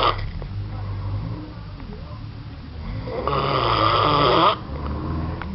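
Loud snoring. One long snore comes about three seconds in and cuts off sharply, with quieter breathing between snores.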